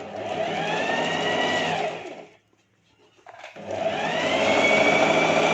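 Electric sewing machine stitching in two runs, each speeding up and then slowing, its motor whine rising and falling, with a short stop about two seconds in.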